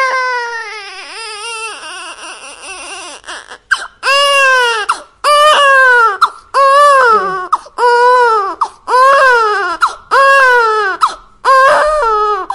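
Infant crying hard. A long wavering wail fades away over the first few seconds. Then comes a steady run of about seven loud cries, each about a second long, rising and falling in pitch, with short catches of breath between them.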